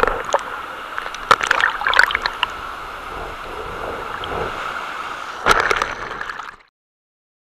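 Shallow surf washing and sloshing right at a water-level microphone, with sharp crackling splashes as water hits it, about a second in, around two seconds in and again near the end. The sound cuts off abruptly shortly before the end.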